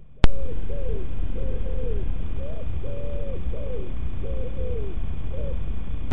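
Pigeon cooing in repeated phrases of low coos, some held level and some falling, over a loud hiss from hugely boosted recording volume. A sharp click sounds just as the boosted audio cuts in.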